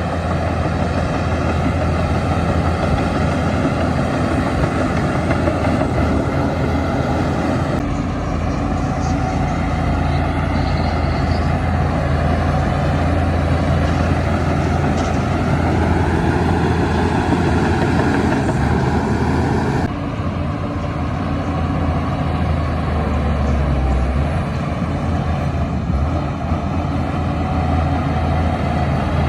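Heavy diesel engine of earthmoving machinery running steadily under load. The engine sound changes abruptly about eight seconds in and again near twenty seconds.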